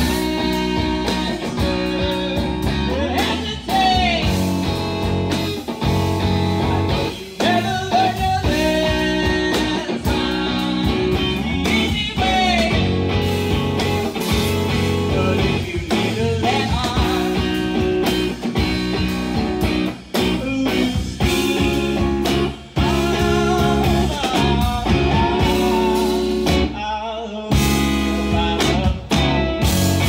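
Live rock band playing: electric guitar, electric bass and drums, with a male singer's vocals.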